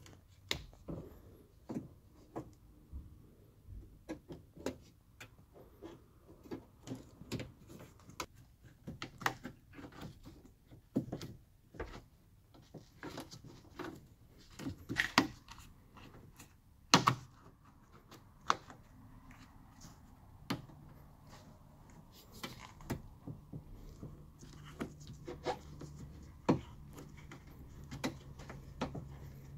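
Irregular clicks, taps and knocks of hands working on a car's rear door frame, handling the window glass, channel and trim parts. The knocks are scattered, with two louder ones about halfway through. A faint steady low hum comes in about two-thirds of the way through.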